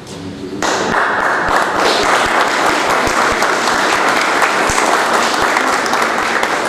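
Audience applauding, a dense spell of clapping that starts suddenly about half a second in and holds steady.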